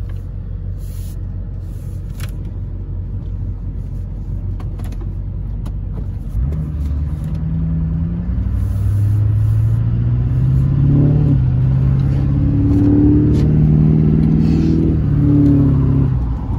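Pickup truck engine heard from inside the cab, running steadily, then accelerating from about six seconds in and getting louder. Its note climbs, drops back about halfway through, climbs again and drops near the end, like upshifts under hard acceleration.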